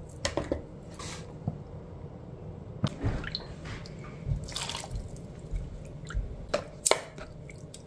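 Soy-based marinade being ladled from a steel pan over beef in a plastic container: liquid pouring, splashing and dripping, with a few sharp clicks from the ladle and tongs.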